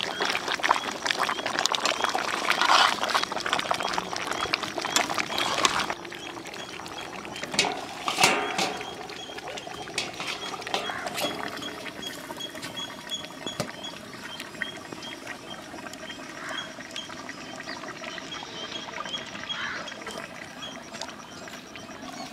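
Chicken legs in masala gravy bubbling and sizzling in a large iron kadai over a wood fire. About six seconds in the sound drops much quieter, with one clatter a couple of seconds later and a faint high chirp repeating in the background.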